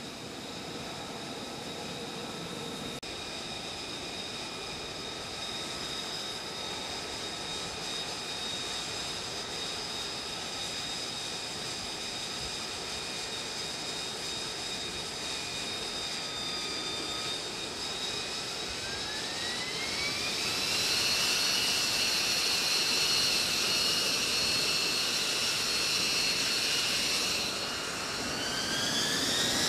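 F-35B's jet engine running with a steady whine, then spooling up twice, about two-thirds of the way through and again near the end, its pitch gliding up to a higher note each time and growing louder. This is the run-up for a short takeoff.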